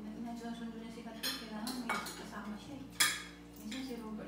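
Spoons and forks clinking against plates and serving dishes as several people eat at a table, a few separate clinks with the sharpest about three seconds in.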